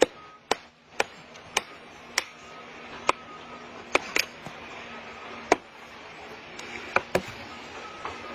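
Wood being chopped by hand with about eleven sharp blows, nearly two a second at first, then slower and uneven.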